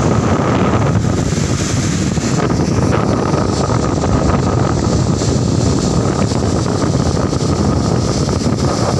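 Water gushing from a tractor-driven pump's outlet pipe and splashing onto a flooded field: a loud, steady rush, over the steady running of the Mahindra 575DI tractor's diesel engine that drives the pumps through the PTO.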